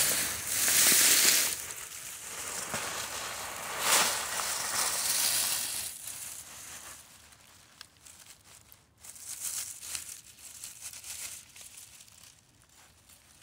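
Dry fallen leaves crackling and rustling as a beagle roots through them with its nose and feet, in irregular bursts. The loudest crunches come in the first few seconds; after about six seconds the rustling turns fainter and more scattered.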